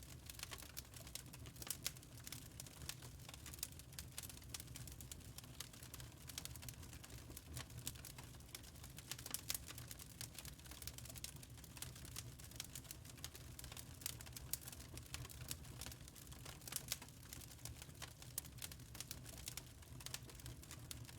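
Wood fire crackling in a fireplace: many irregular small pops and snaps from the burning logs over a steady low rumble.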